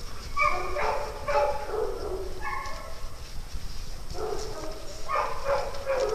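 Dogs giving high-pitched whines and yips in two bouts, the first from about half a second in for a couple of seconds, the second from about four seconds in.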